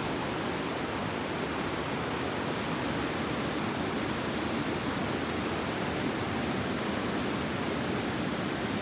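Steady rushing of a small rocky creek, with water running between boulders.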